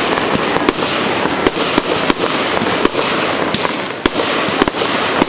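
Fireworks display: a dense, continuous crackle with sharp bangs about twice a second.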